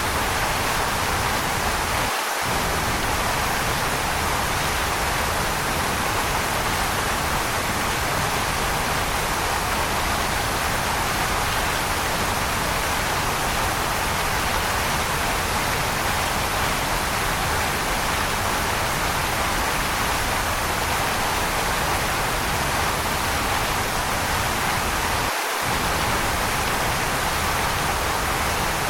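Waterfall rushing in a steady, even hiss. The low rumble cuts out for a split second twice, once about two seconds in and once near the end.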